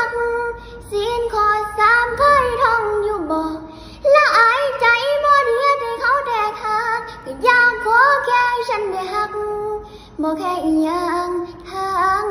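A young girl singing solo. She holds long notes with vibrato, in phrases of three to four seconds separated by short breaths.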